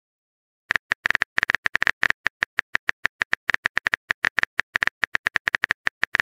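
Phone keyboard typing sound effect: a rapid run of clicks, several a second, beginning under a second in, as a text message is typed out letter by letter.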